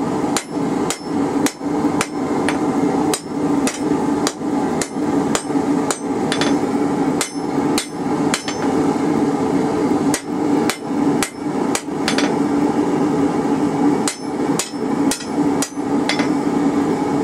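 Hand hammer striking hot half-inch rebar on an anvil in a steady rhythm of about two blows a second, drawing out a taper. There is a short pause about twelve seconds in, and a steady hum underneath.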